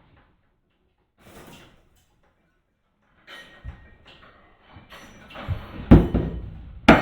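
Rattling and scraping of metal parts on a shop-installed truck bed crane being handled, building up over the last few seconds and ending in two loud knocks about a second apart.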